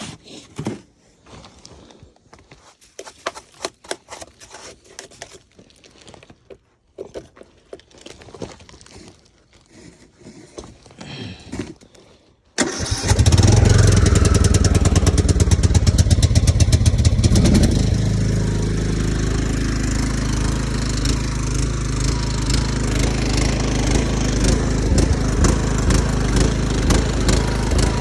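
Scattered clicks and handling noises, then about halfway through the Craftsman YTS 3000 lawn tractor's engine suddenly fires on a cold start and keeps running loud and steady.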